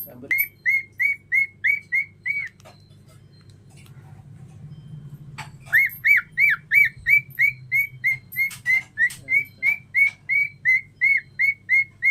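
Cockatiel calling in a rapid string of short, clear whistled notes, about three a second, each rising and falling in pitch. It gives a short run, pauses for a few seconds, then starts a longer run about halfway through.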